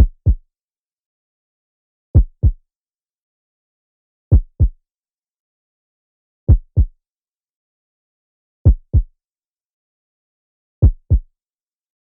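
Heartbeat sound effect: low double thumps (lub-dub), the two beats of each pair about a third of a second apart. The pair repeats six times, about once every two seconds, with silence between.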